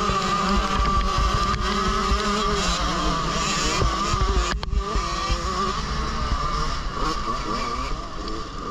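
Motocross bike engine running hard at high revs, heard close up from a rider's helmet camera, with a heavy low rumble under it. The engine note holds high and steady, with a brief cut-out about halfway through.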